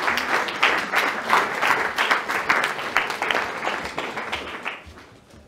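Audience applauding, with many hands clapping at once; the applause dies away over the last second or so.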